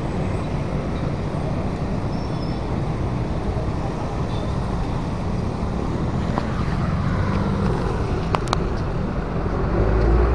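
Steady traffic noise from motor scooters and cars crossing a railway level crossing: small engines running and tyres on the road, with a few sharp clicks about eight seconds in.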